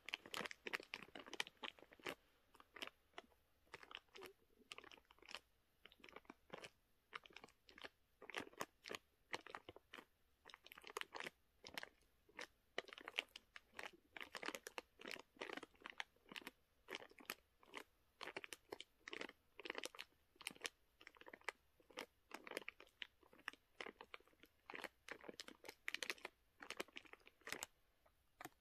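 Dry block of uncooked Nongshim Ansungtangmyun instant ramen being crushed by hand inside its sealed plastic packet. Runs of sharp crackling and crunching come in clusters, with short pauses between them.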